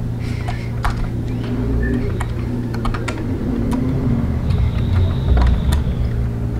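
Light, irregular clicks and taps as fingers handle a diecast model car and press on its metal rear luggage rack, over a steady low hum.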